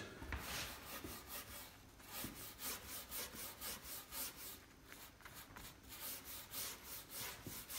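Copper-bristled detail brush scrubbing weathered wood wet with grain enhancer: quick back-and-forth strokes, about three a second, each a short scratchy hiss.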